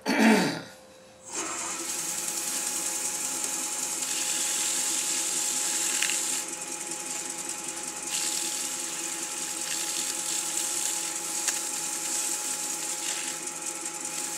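Wood lathe starting about a second in and running steadily, spinning an oak pot call while black paste wax is worked into it, with a hiss of rubbing against the turning wood that eases off briefly twice.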